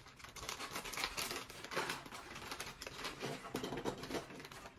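Foil blind-bag wrapper crinkling and tearing as it is pulled open and handled, a dense run of small crackles.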